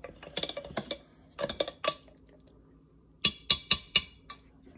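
A metal spoon clinking and scraping against a glass blender jar, stirring a smoothie too thick to blend. The knocks come in three quick clusters, with a pause of about a second before the last.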